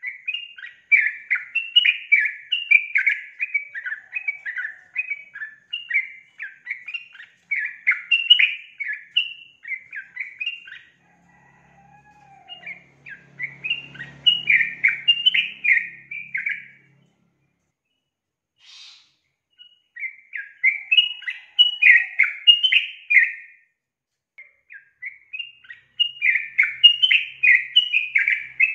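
Female yellow-vented bulbul (trucukan) calling in long runs of rapid, chattering chirps. There are four bouts with short pauses between them.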